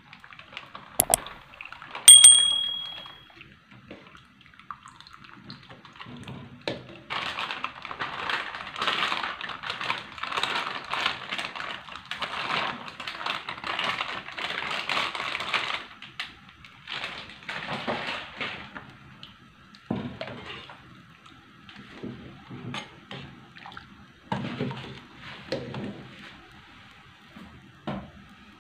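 Coconut milk poured from a plastic bag into a pot of kolak, splashing and sloshing steadily for several seconds, followed by shorter bouts of sloshing. A single bright ding rings out about two seconds in.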